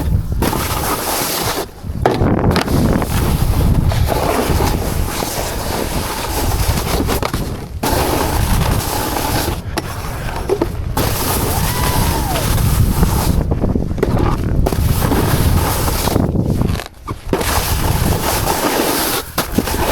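A snowboard sliding and scraping over spring snow, with wind on the helmet-camera microphone. The noise is continuous apart from several short quiet gaps.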